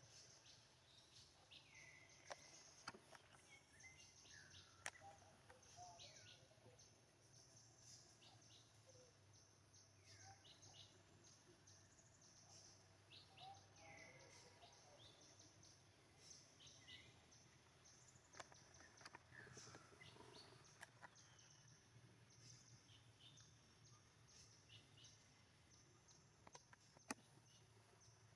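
Near silence: faint outdoor ambience with scattered short, high chirps that drop in pitch and a few sharp clicks.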